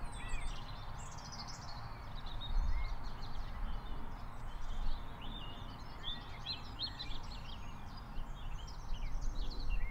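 Early-morning bird song: many short chirps and trills from several small birds at once, over a steady low rumble.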